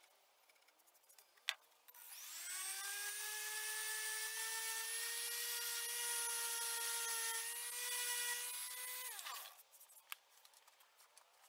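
Bosch random orbital sander switched on about two seconds in: its motor whine rises as it spins up, holds steady for about seven seconds while sanding through layered paint on wood, then falls away as it is switched off and winds down.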